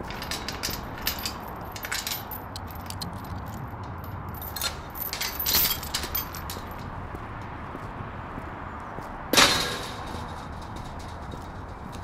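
Chain and padlock rattling against a steel mesh gate as it is unlocked, in two spells of clinks. About nine seconds in comes a single loud metal clang with ringing from the gate.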